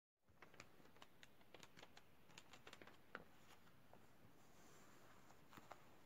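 Near silence: quiet room tone with faint, irregular light clicks and ticks, most of them in the first few seconds and a couple more near the end.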